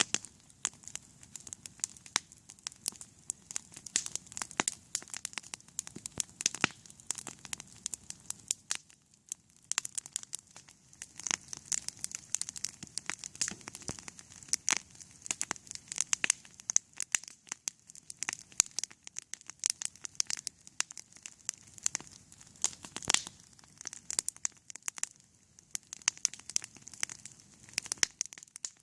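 Wood campfire crackling, with a dense, irregular run of sharp pops and snaps from the burning wood.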